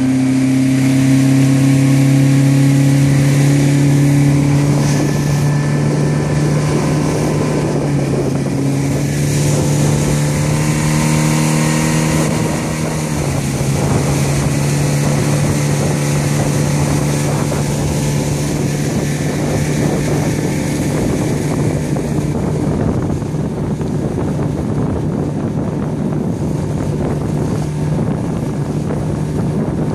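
Mercury 50 hp outboard motor running steadily at speed during its break-in run, with water and wind rushing past the boat; the engine pitch shifts slightly and drops a little about halfway through.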